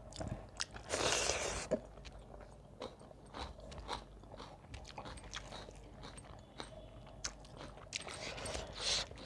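Close-miked eating sounds: a mouthful of rice and curry being chewed, with many short wet clicks and crunches, and two louder crunchy stretches, about a second in and near the end.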